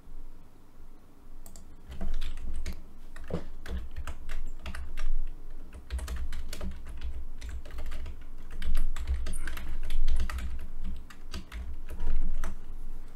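Typing on a computer keyboard: quick, irregular keystrokes that start about two seconds in and go on with short pauses.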